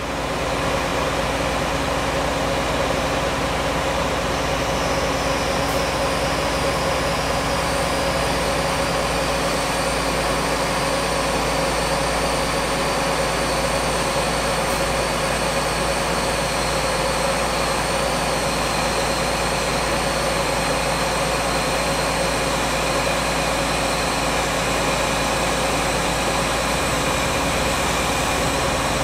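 Heavy diesel engine of the oversize-load rig running steadily, with steady whining tones over its low rumble.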